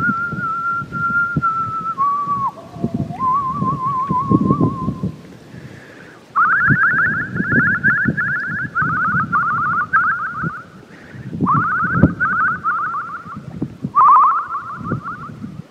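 A person whistling a tune: a held note with a slow waver, a drop to lower notes, then from about six seconds in quick warbled phrases with short breaks between them. A low irregular rumble runs underneath.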